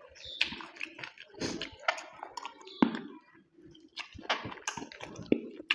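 Close-up eating sounds of mutton curry: chewing and wet mouth smacks coming as a run of irregular sharp clicks.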